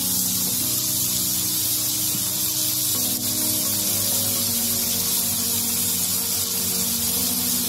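Chopped young jackfruit sizzling in a wok as it is sautéed, a steady hiss, with light background music playing underneath.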